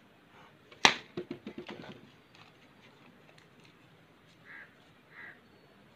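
A sharp knock on a small wooden stool top about a second in, followed by a quick run of lighter taps that fade out within a second.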